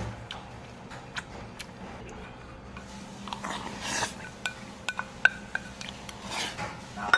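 Metal spoon and chopsticks clinking against a small stainless-steel bowl, a few light clinks and then a quicker run of them, the loudest ringing briefly, followed by a slurp from the bowl near the end.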